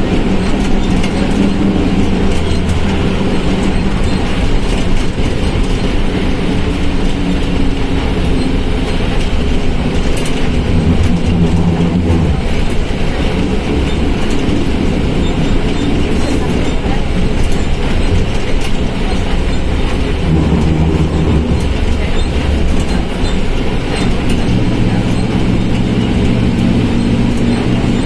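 Volkswagen Volksbus 17.230 OD bus's diesel engine running under way, its pitch rising and dropping several times with speed and gear changes, along with a growling transmission and small rattles.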